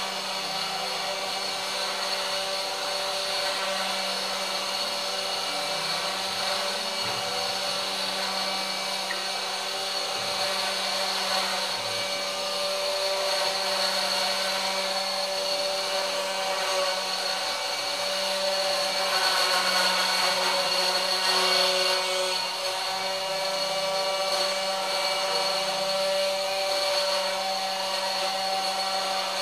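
Homemade CNC router's spindle motor running with a steady whine while its engraving bit cuts an outline into fibreboard. The cutting grows a little louder about two-thirds of the way through.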